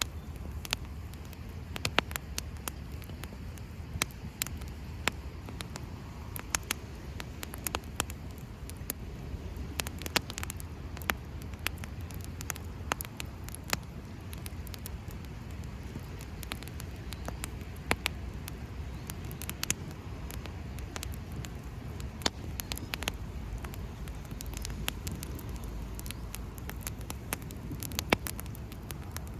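Wood campfire crackling, with irregular sharp pops, a few louder than the rest, over a low steady rumble.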